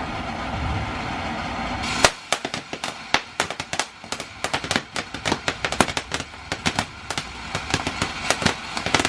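A steady rumbling noise, then from about two seconds in a fast, irregular string of sharp firecracker pops and crackles.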